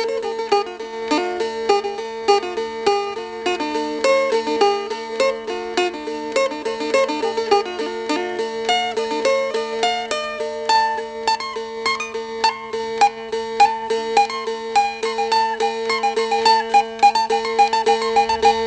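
Instrumental music on a plucked string instrument: quick, busy runs of notes over a steady held drone.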